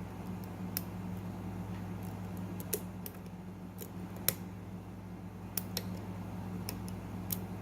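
Light, irregular metallic clicks and ticks of a lock pick and tension wrench working the pins inside a custom-pinned lock, about a dozen over the stretch, over a steady low hum.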